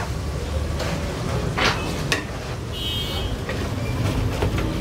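Busy street ambience: a steady low rumble of traffic and crowd, with scattered clicks and clatter from the food counter and a brief high-pitched tone about three seconds in.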